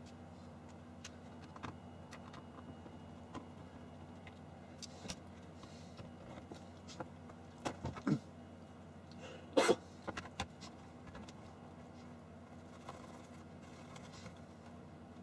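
Plastic parts of a UV nail-dryer lamp unit being handled and taken apart: scattered clicks and knocks of the plastic housing and lamp panel, loudest about 8 and 10 seconds in, over a low steady hum.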